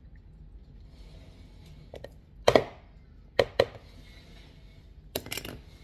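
A spatula knocking sharply against the rim of a bowl to shake off softened butter: a double knock about two and a half seconds in, two more a second later, and a quick run of three near the end, with faint scraping between.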